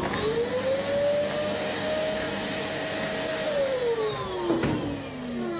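Small handheld vacuum cleaner running: its motor whine rises as it spins up, holds steady for a couple of seconds, then falls away as the motor winds down.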